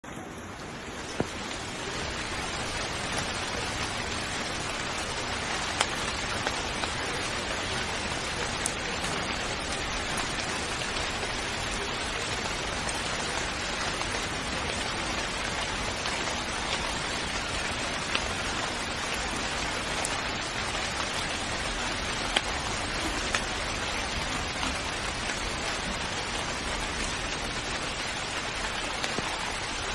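Steady rain falling, an even hiss with now and then a sharper single drop striking close by. It fades in over the first second or two.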